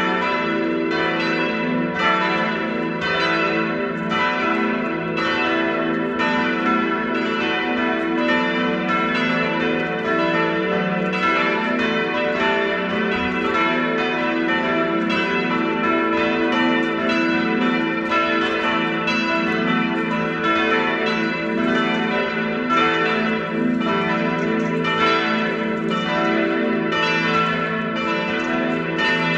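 Full peal of the four church bells of St. Marien, a 1980s Catholic church, swinging and ringing together. Their strikes overlap without a break at a steady level.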